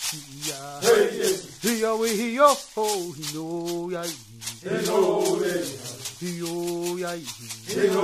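Chanting voice accompanied by a shaken rattle keeping a steady beat; the sung phrases rise and fall and pause briefly between them.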